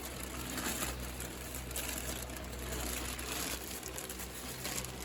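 Plastic packaging crinkling and rustling as small parts are handled, with many small irregular clicks.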